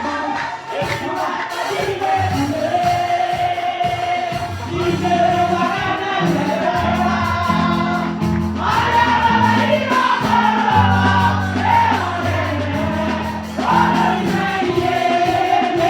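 Congregational gospel singing with a choir, backed by a bass line and percussion.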